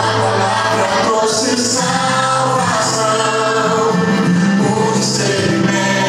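Gospel song with singing over an instrumental backing track, loud and continuous.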